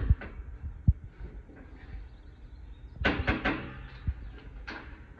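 Metal hurricane storm panels being handled and seated on the bottom-rail screws over a door: a sharp low thud about a second in, then a short burst of metal clattering and knocking around three seconds in.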